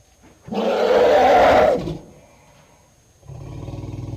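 Elephant calling: one loud, harsh call lasting about a second and a half, then a lower, quieter buzzing call starting near the end.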